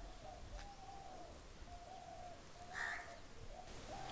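A crow cawing once, about three seconds in, with a faint low bird call repeating over and over in the background.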